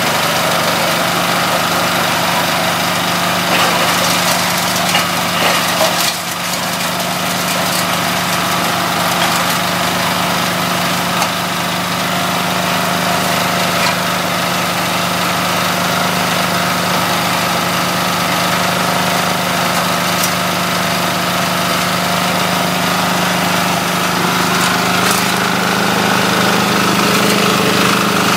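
Coconut husk shredder driven by a small engine, running steadily as husk is fed in, with a few sharp knocks a few seconds in as husk is chewed. About three-quarters of the way through, the engine note steps up slightly and gets a little louder.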